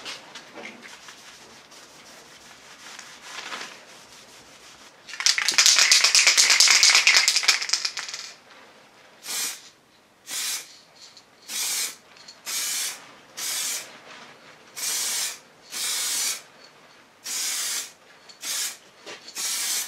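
Aerosol spray-paint can hissing: one long spray of about three seconds, then a steady series of about eleven short bursts, each roughly half a second, as top coat is dusted onto a body repair. Faint rubbing of wet-and-dry sanding comes before the spraying.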